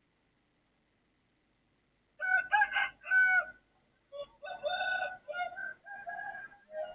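A rooster crowing, starting about two seconds in, in two stretches with a short break between them.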